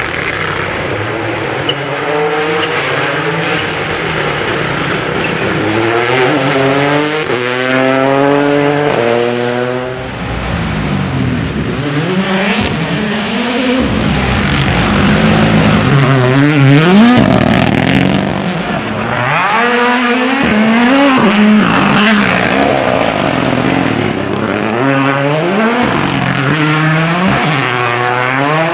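Rally car engine revving hard under acceleration, its pitch climbing in steps through the gears and dropping again on lifts and shifts, several times over. It is loudest about halfway through.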